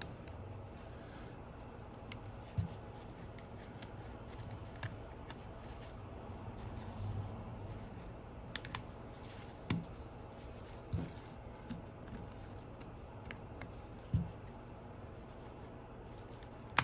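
Scattered light clicks and taps of small repair tools against an iPhone 11 as its screen is pried off, over a faint steady hum.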